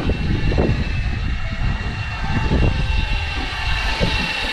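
Steady low rumble of a fishing boat's engine at sea, with wind gusting on the microphone and a thin steady high whine running through it.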